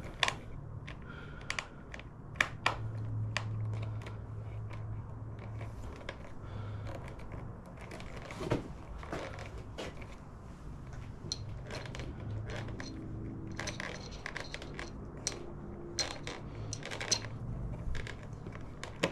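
Scattered metallic clicks and taps of hand tools and small fasteners being handled while turn-signal bolts are started and tightened, over a low steady hum.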